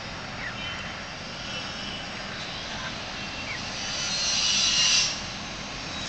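Steady outdoor background rumble with a few faint, short bird chirps. About four seconds in, a louder hiss builds for about a second and then cuts off sharply.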